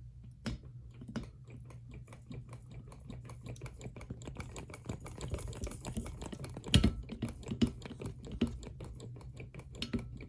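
Fast, irregular light clicking and tapping from ceiling fan parts being handled, with a few heavier knocks (the loudest about two-thirds of the way in), over a steady low hum.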